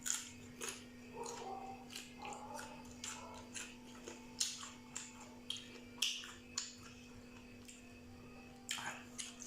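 Eating close to the microphone: irregular soft clicks and smacks of chewing and utensils, over a faint steady hum.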